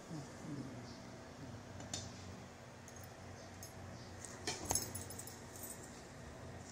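A plastic fork and spoon clinking and scraping against a plate while cutting soft food. The light taps are scattered, with a short cluster of clicks about four and a half seconds in.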